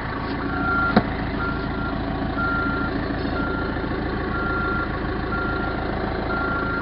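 Backhoe's backup alarm beeping steadily about once a second over its diesel engine running, with one sharp click about a second in.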